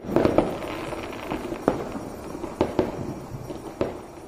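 Firecrackers going off: scattered sharp pops at uneven intervals.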